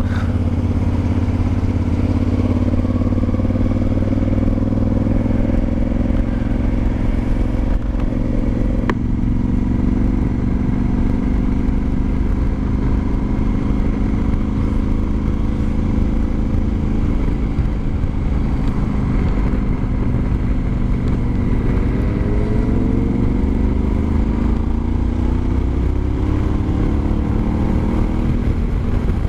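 Honda Varadero XL1000's V-twin engine running on the road. The note eases down early on, holds steady, then rises in pitch through the last third as the bike accelerates, and drops again near the end.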